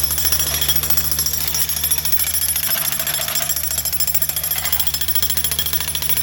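Jackhammer breaking up concrete, hammering in a fast, unbroken rattle over a steady low hum.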